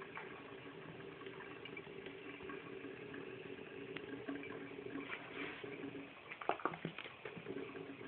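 Bathroom faucet water running into the sink with a steady hum in it. A little over six seconds in, the hum breaks off for about a second while a quick cluster of sharp splashes and taps from the cat at the water stands out loudest.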